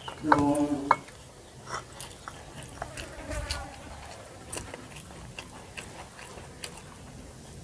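Close-up chewing and mouth noises of people eating a meal by hand, with scattered small clicks and smacks. A short hummed vocal sound comes about half a second in.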